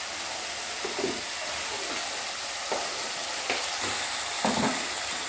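Chopped tomatoes, green chillies and capsicum frying in a kadai on a gas stove: a steady sizzle, with a few faint clicks.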